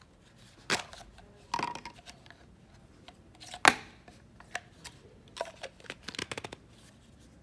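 Hand-handling sounds on a cutting mat: small knocks and clicks of a scalpel, a block and paper being picked up and set down. The loudest is a sharp knock about three and a half seconds in, and a quick run of light clicks comes near the end.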